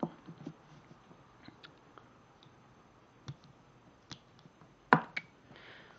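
Faint clicks and taps of small flashlight parts being handled, with two sharper clicks about five seconds in.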